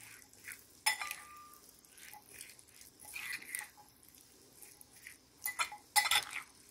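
A metal spoon stirring cooked white beans and dressing in a ceramic bowl: soft wet mixing with a few light clinks of the spoon against the bowl, one ringing briefly about a second in.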